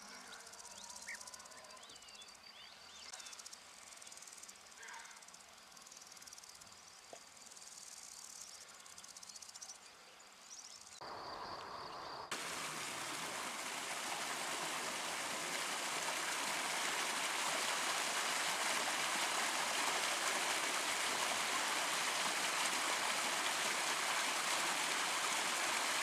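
Faint open-country ambience with insects trilling and a few short chirps. About halfway through it cuts to a shallow stream running over rocks: a steady rush of water that grows louder and then holds.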